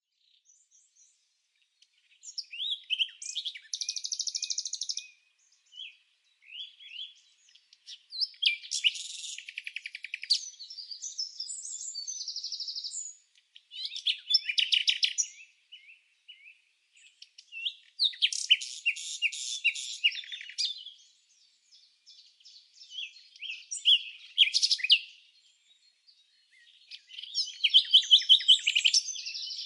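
Songbird singing: phrases of quick, high chirps and trills a couple of seconds long, repeating every few seconds with short silences between.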